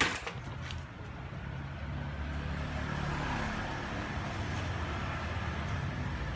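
Low, steady rumble of a motor vehicle engine or road traffic, swelling a little about three seconds in, after a single sharp knock at the very start.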